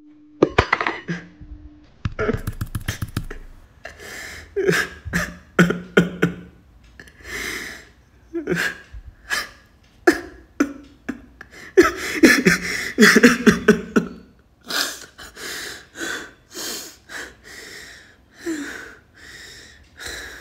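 A person's voice making a string of short, breathy gasps and heaving breaths at an irregular pace, with a few sharp clicks among them.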